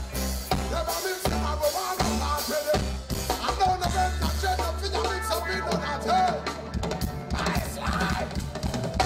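Live reggae band playing: deep, long-held bass guitar notes under drum-kit hits, with a wavering melody line over the top.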